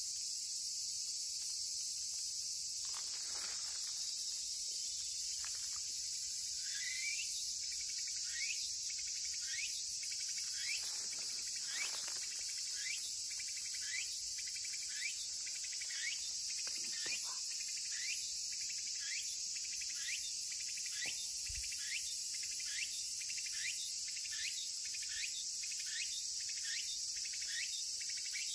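Cicadas singing in summer forest: a steady high-pitched chorus, over which a tsukutsukubōshi (Meimuna opalifera) cicada repeats its short rising phrases about once a second from about six seconds in, quickening toward the end.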